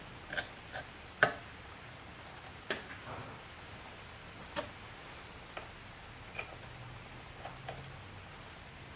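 Small metal engine parts clicking and tapping against each other as Honda Super Cub clutch components are fitted by hand. There are about ten separate light clicks, the sharpest a little over a second in.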